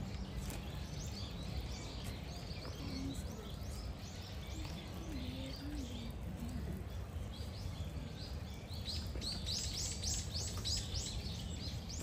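Small birds chirping over a steady low background rumble, with a quick run of chirps near the end.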